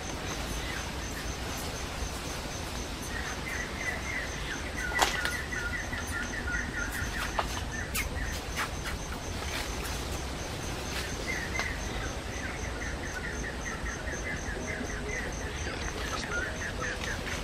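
Forest ambience: runs of rapid, high chirping calls lasting a few seconds each, over a steady, evenly pulsed high tone, with scattered sharp clicks and snaps.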